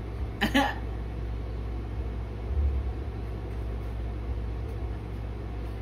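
Steady low rumble with an even hiss underneath, swelling briefly about two and a half seconds in.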